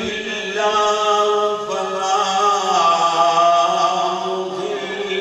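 A man chanting in long, drawn-out melodic phrases into a microphone, his voice holding each note.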